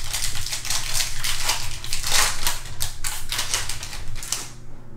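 Silver foil wrapper of a Panini Prizm football card pack being torn open and crinkled in the hands. It makes a dense, irregular crackling rustle that is loudest about two seconds in and stops about four and a half seconds in.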